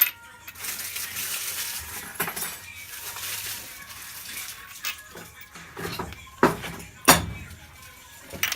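Metal fork parts clinking and knocking as the top plate is fitted over greased loose ball bearings in a three-wheeler's steering head, with a stretch of rustling handling noise in the first few seconds.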